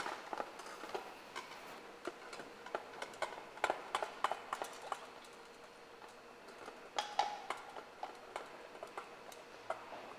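Kitchen utensils clicking and tapping against bowls and the counter, light and irregular, with denser runs of taps about four seconds in and again about seven seconds in.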